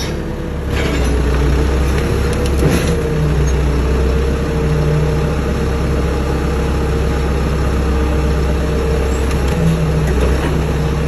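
Telehandler's engine running steadily, with a steady whine over it as the fork carriage is worked.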